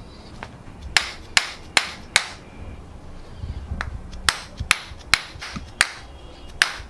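A run of sharp knocks or taps, evenly spaced about two and a half a second: four in a row about a second in, a short pause, then five or so more, and a last one near the end.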